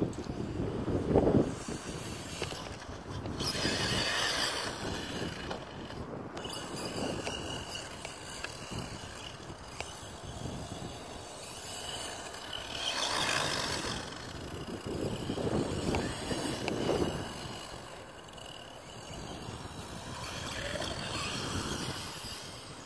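Redcat Blackout XTE electric RC monster truck driving on grass, its motor and gears whining up and down in several surges as it speeds up and slows.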